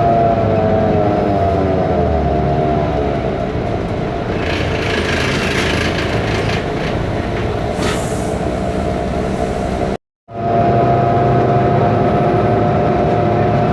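BMC Belde city bus's Cummins ISBe diesel engine and drivetrain running under way, heard from inside the bus, with a high whine that falls in pitch over the first few seconds and then holds steady; the uploader calls the engine sound faulty. A hiss rises over it from about four to eight seconds in, and the sound cuts out for a moment about ten seconds in.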